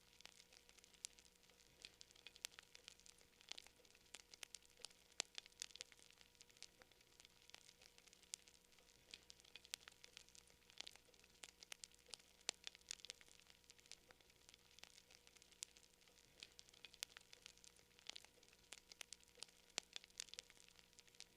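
Campfire crackling faintly: burning wood giving irregular sharp pops and snaps, several a second, over a low hiss.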